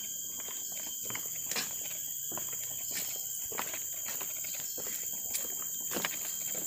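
A steady high-pitched insect chorus, with irregular knocks of footsteps on the wooden planks of a suspension bridge.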